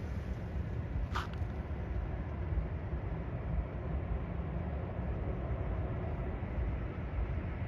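Steady low rumble of outdoor airport ambience, with two brief clicks about a second apart near the start.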